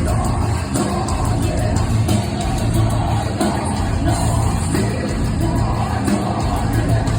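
Metal band playing live and loud, with singing over the music.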